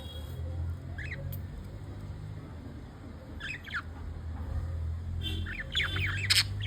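Budgerigars giving short, scratchy chirps and squawks: a single call about a second in, a few more around the middle, and a quick run of calls near the end that finishes in a sharp click. A low steady hum runs underneath.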